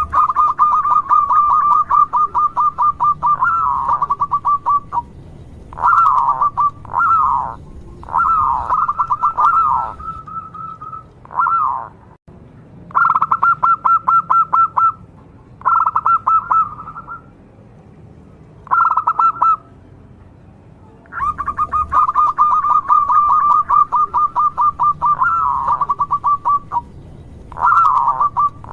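Zebra dove (local perkutut) singing: phrases of rapid, staccato cooing notes, each lasting from under a second to about five seconds, repeated again and again with short pauses between.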